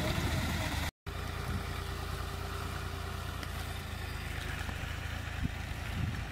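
Farm tractor's diesel engine running at a steady low idle, with the sound cutting out for a split second about a second in. A couple of soft knocks near the end.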